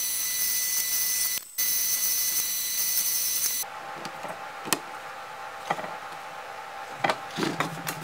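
A drill press runs with a small bit fitted, a loud steady hiss with a high whine that dips briefly and then cuts off about three and a half seconds in. After that come a few light clicks and taps as small wooden plugs are pressed by hand into holes in a walnut strip.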